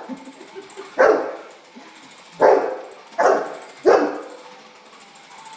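A dog barking four times, single sharp barks spaced roughly a second apart, as it chases a light spot.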